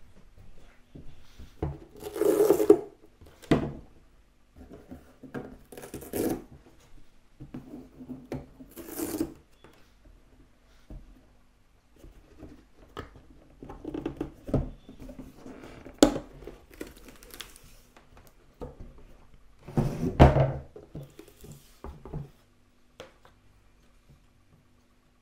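Handling noise as the box files of a model railway layout are moved and set back in place: irregular knocks, rubbing and scraping. The loudest knocks come a couple of seconds in and again about twenty seconds in, with a sharp click in between.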